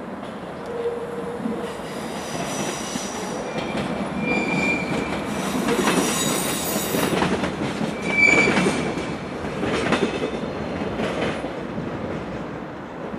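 Passenger train rolling through the station's tracks: the wheels squeal in high tones, briefly about four seconds in and again more sharply about eight seconds in, over a steady rumble and clatter of wheels on rail joints and points.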